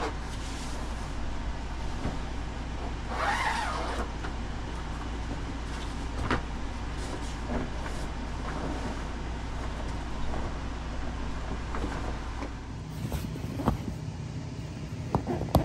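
Fabric rustling as the cloth-covered air chambers of a Sleep Number bed are pulled and shifted, over a steady low hum. Near the end come a few sharp clicks and handling noises at the mattress's air-hose connector as it is worked loose.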